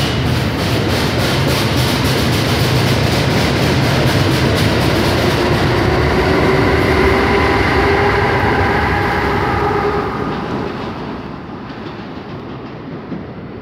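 Amtrak Keystone passenger train rolling past a platform, its wheels clicking over rail joints. A steady whine of several tones rides over the rumble from about five to ten seconds in, and then the sound fades as the train pulls away.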